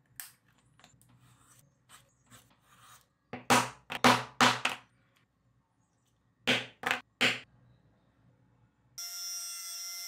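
Hand leatherworking tools on leather: light clicks, then a cluster of loud, sharp scraping strokes and three more a couple of seconds later. About a second before the end, a corded electric edge burnisher's motor starts and runs with a steady whine.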